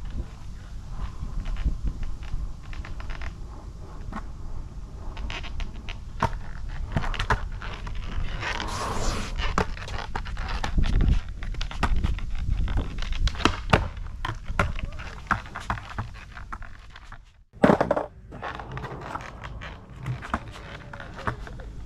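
Skateboard riding: soft 56 mm 87A urethane wheels rolling on pavement with a steady low rumble, broken by frequent clacks and knocks of the board and wheels. The sound drops out briefly about seventeen seconds in.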